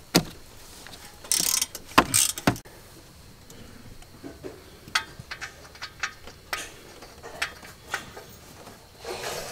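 Hand socket ratchet clicking as exhaust manifold bolts are undone on a Toyota 1HZ diesel engine. Two short bursts of clicking come in the first few seconds, then scattered single clicks and light metal knocks.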